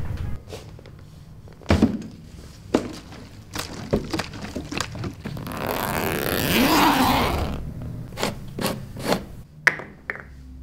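A series of sharp knocks and clicks from hands handling something, with a longer scraping sound about six seconds in.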